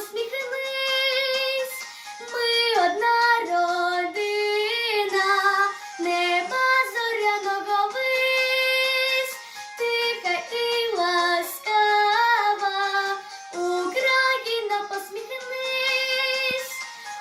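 A young girl singing a Ukrainian song in phrases of a few seconds, holding long notes with vibrato, with short breaks between lines.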